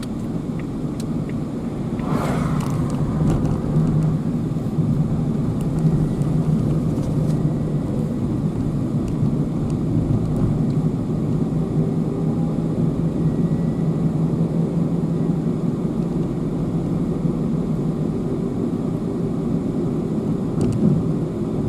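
Car engine and road noise heard while driving, a steady low rumble with a constant hum.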